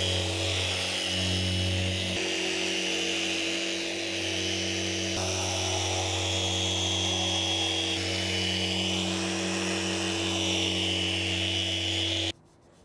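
Power sander with 120-grit paper running steadily while keying (scuff-sanding) the fiberglass cabin top to prepare it for non-skid coating. It stops suddenly near the end.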